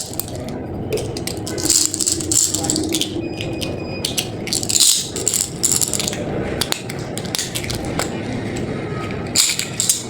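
Plastic candy packaging being handled and opened, crinkling in short bursts with small clicks in between.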